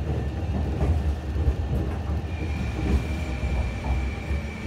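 In-cabin running sound of a Sapporo streetcar 8510-series tram, which has Mitsubishi IGBT VVVF traction equipment: a steady low rumble from the running gear with scattered knocks. A thin, steady high whine comes in a little after two seconds in.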